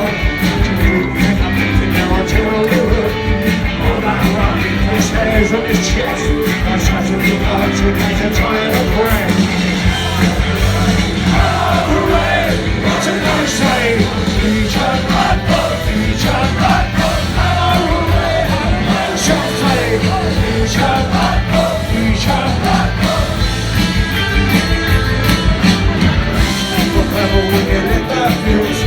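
Rock music from a band, playing continuously at a steady loud level.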